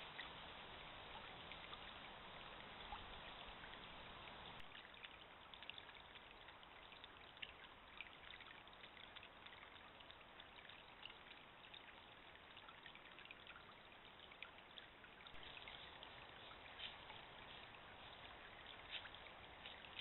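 Faint, steady trickle of a shallow stream with scattered small ticks, heard through a trail camera's band-limited microphone.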